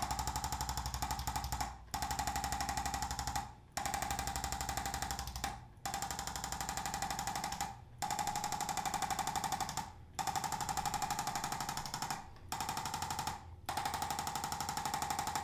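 Handheld electric percussive adjusting tool hammering rapidly with an even buzz as it is run up and down the spine, in runs of about two seconds broken by short pauses as it is moved to the next spot.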